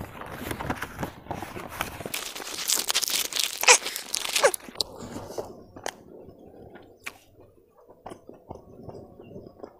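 A person crunching and chewing food close to a clip-on microphone, loudest for the first few seconds, then softer chewing with scattered clicks.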